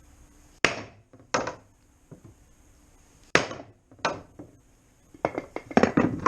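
Hammer blows on a plastic AXP skid plate laid over a piece of wood, beating the impact-bent plate back into shape: four separate strikes, then a quick run of blows near the end.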